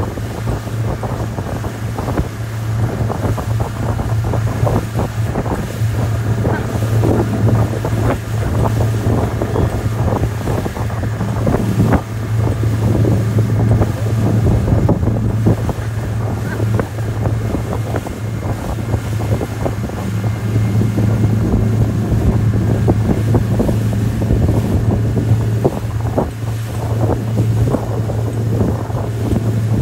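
Outboard motor running steadily at speed, a steady low drone, while the boat tows a banana boat. Wind buffets the microphone and the wake churns behind.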